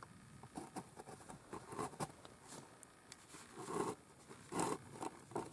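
Close rustling and scuffing handling noise near the microphone, in irregular short scrapes with a few louder ones in the middle and latter half.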